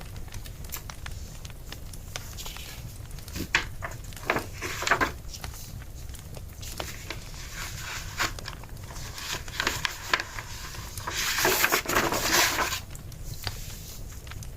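Wood fire crackling, with scattered sharp pops and a cluster of louder pops a few seconds in, over a low steady hum. A louder rustle comes near the end.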